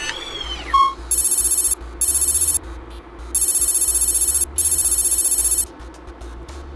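Electronic graphics sound effects: a sweeping chirp and a short beep in the first second, then four buzzing electronic tones, each half a second to a second long, that stop about two-thirds of the way through, over a low steady drone.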